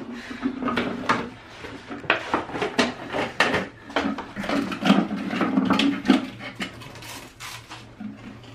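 Plastic jar being handled and opened: a dense run of irregular clicks, taps and rustles that thins out near the end.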